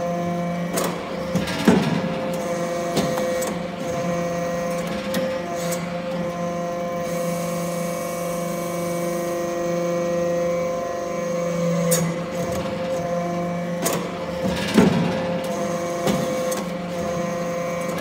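Hydraulic aluminum-chip briquetting press running: the steady hum of its hydraulic power unit, with a lower drone that comes and goes as the press cycles. Several sharp metallic clanks sound from the press, the loudest about two seconds in and near the end.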